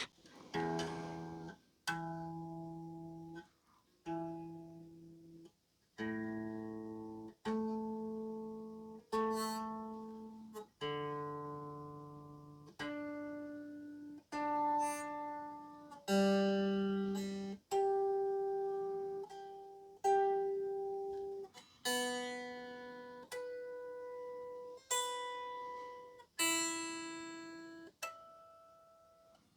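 Stratocaster guitar strings plucked one note at a time, each note left to ring and die away before the next, about every one and a half to two seconds, working through the strings to check the intonation.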